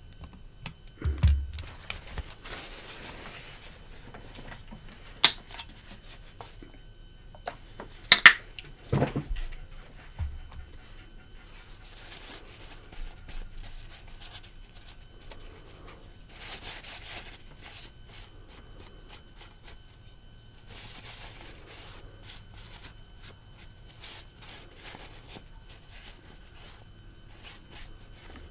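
Hands handling a folding pocketknife and small metal parts on a silicone work mat: scattered sharp clicks and knocks, the loudest a few seconds in, between stretches of soft rubbing as a paper towel wipes the knife down.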